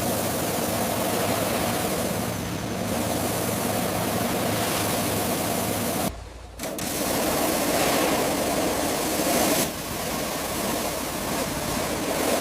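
A steady rushing noise, broken by a short dip about six seconds in.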